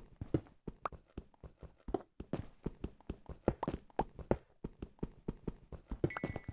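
A rapid, irregular series of short knocks and taps, about five a second, with a brief high beep near the end.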